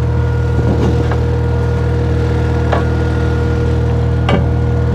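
The 23 horsepower Onan engine of a homemade hydraulic log splitter runs steadily with a steady whine over it. Brief sharp ticks or creaks come about a second in, near three seconds and past four seconds.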